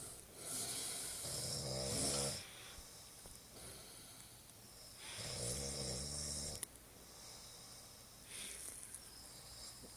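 A man snoring in his sleep: two long buzzing snores about four and a half seconds apart, the second cut off by a short click, then a fainter breath.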